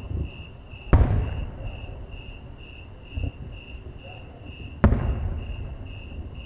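Aerial fireworks shells bursting: two sharp bangs about four seconds apart, each echoing and trailing off, with lighter thumps between. Under them, insects chirp in a steady rhythm of two or three chirps a second.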